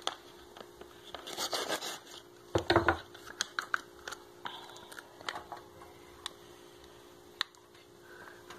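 Kitchen handling sounds: scattered clicks, knocks and scrapes of utensils and dishes, with a louder clatter about two and a half seconds in, over a faint steady hum.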